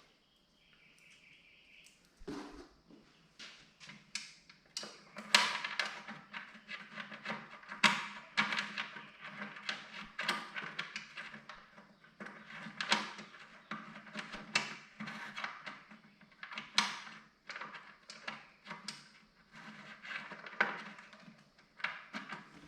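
Irregular metal clicks and knocks from hand tools and parts being worked on a fertilizer hopper's bolts, starting about two seconds in and coming in quick clusters.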